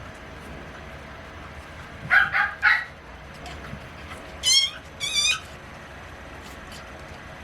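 Chihuahua puppies giving three quick yips about two seconds in, then two high-pitched, wavering squeals a little after four and a half seconds.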